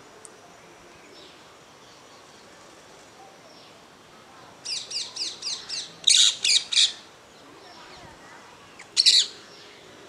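Rose-ringed parakeet calling: a fast run of about nine high calls starting near the middle, the last three loudest, then a loud double call near the end. Faint chirps of other birds sound in the background.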